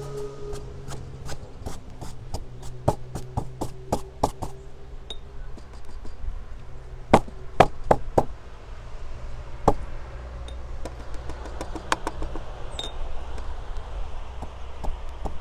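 A run of sharp, irregular taps and knocks, quick in the first few seconds, then a few louder knocks around the middle, over a steady low rumble.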